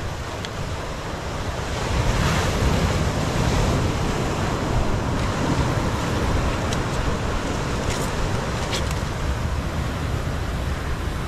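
Steady rush of surf and wind, with wind buffeting the microphone, growing louder about two seconds in.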